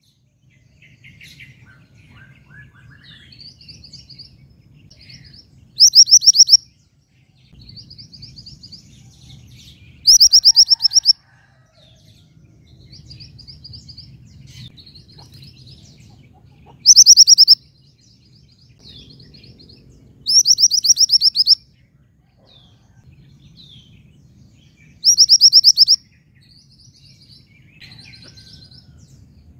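Female mantenan gunung, a yellow mountain songbird, calling to draw a male: five loud, rapid high trills of about a second each, with soft short chirps between them.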